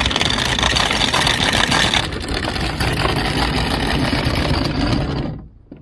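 Anchor chain rattling out through a sailboat's bow windlass as the anchor is dropped, a dense continuous clatter. The sound changes about two seconds in and fades away near the end.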